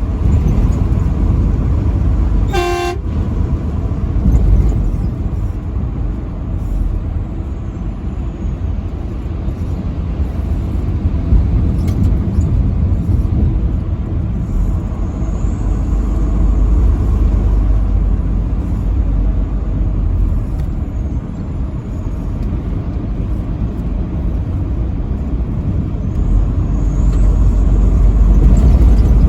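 Steady low rumble of a vehicle driving on an interstate highway, with one short blast of a truck horn about three seconds in.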